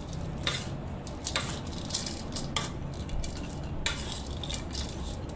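Crisp fried tempe and anchovies being stirred and tossed in a steel wok, with irregular scrapes and clacks of the stirring tool against the pan. The mixture is being coated in a sticky spice paste.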